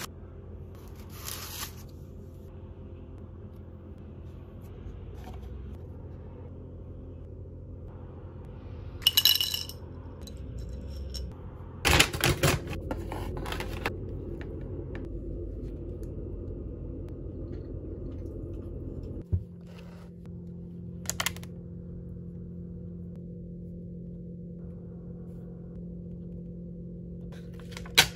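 Steady low room hum with scattered small handling sounds: paper wrapping rustling about a second in, a short ringing clink near the middle, a burst of clattering a little later, and a few single clicks near the end.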